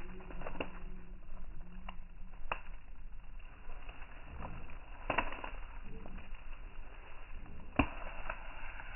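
Newfoundland dog chewing and tearing at a bunch of bamboo leaves held out by hand: scattered crunches and leaf rustles, with a few sharp snaps, the loudest about five and eight seconds in.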